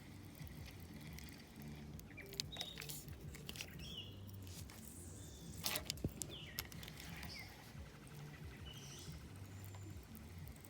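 Fishing reel being cranked to retrieve a cast lure, with a faint, fast, even ticking in the second half and a few sharp clicks and knocks of handling. Short faint chirps are heard here and there.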